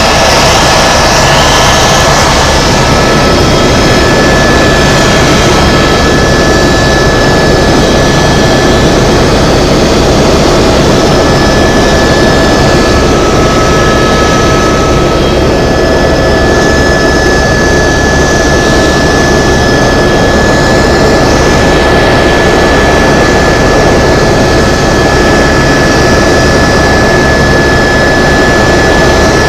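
Tour helicopter in flight, heard from inside the cabin: the turbine whine and rotor noise run steadily and loud, with a constant high tone over a dense low rumble.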